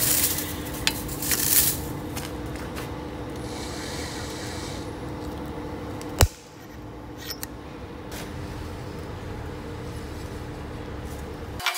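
Steel tooling clinking and scraping as the line boring bar is handled, loudest in the first two seconds. A steady machine hum runs underneath and stops with a sharp click about six seconds in, and a few lighter taps follow.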